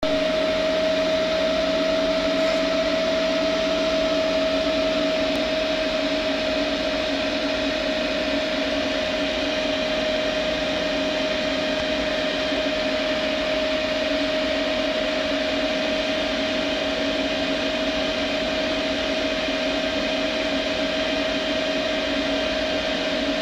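A steady machine hum: one clear, constant whining tone over lower hum and hiss, unbroken throughout.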